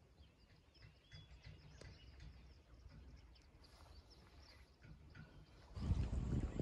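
Small birds chirping and twittering faintly. About six seconds in, a loud low rumble of wind buffeting the microphone cuts in.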